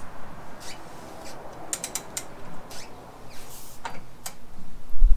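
Scattered light clicks and clinks of metal engine parts and tools being handled, with a cluster of quick clicks about two seconds in and a low rumble near the end.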